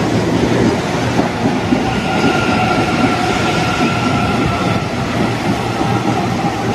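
Electric commuter train rolling past a station platform: a steady rumble of wheels on rails, with a faint high whine joining in for a few seconds midway.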